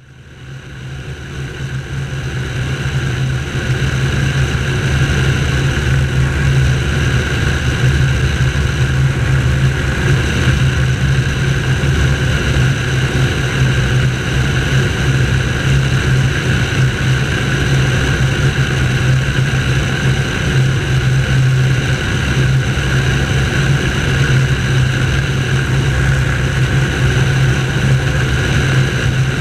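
Light aircraft's engine and propeller droning steadily on final approach, with air rushing past, heard from the wing; it fades in over the first few seconds.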